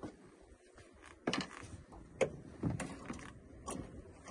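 A few short, sharp knocks and clacks on a small boat, four or five in all at irregular spacing, the loudest a little over two seconds in, while an angler reels in a hooked fish.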